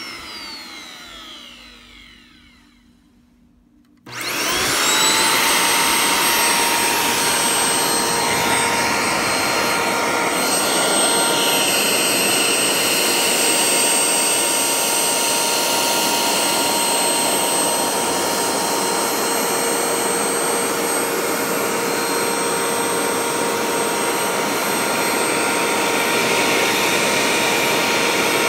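Dyson DC07 upright vacuum cleaner's motor winding down and fading out after being switched off, then switched back on about four seconds in, spinning up quickly and running steadily with a high whine.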